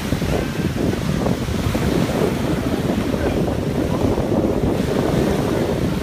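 Wind rumbling on the phone's microphone over breaking surf, with the engines of jet skis running through the waves offshore.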